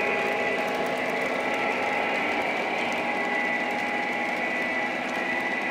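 Steady whirring of small electric motors, a held high whine over an even hiss.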